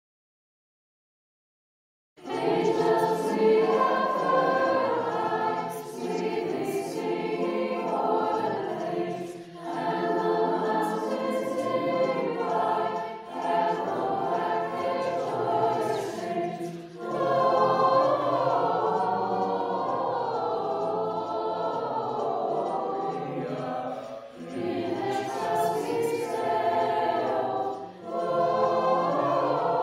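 High school choir singing a carol, made up of separately recorded voices mixed together into a virtual choir. The singing starts after about two seconds of silence and goes on in phrases with short breaks between them.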